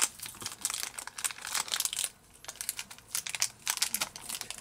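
Thin clear plastic wrapper crinkling in short, irregular bursts as hands pull it open and off a small toy figurine, with a brief pause about two seconds in.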